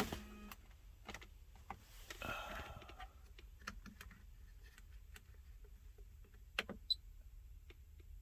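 Faint, scattered clicks and light handling noises inside a car cabin as dashboard buttons are pressed to reset the maintenance reminder, with a sharper pair of clicks near the end.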